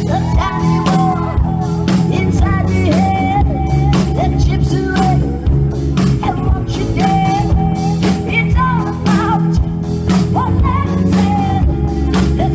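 A rock song: a voice singing held, wavering notes over drums and a band.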